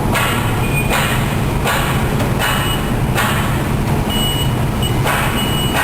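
Steady, loud low rumble of machinery running in the background, with short bursts of hiss every second or so and a few brief high pings.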